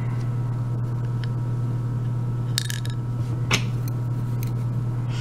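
Light clicks and taps from handling the pinned plug of a Vachette euro lock cylinder over a wooden pin tray, a few sharp ones clustered around the middle, over a steady low hum.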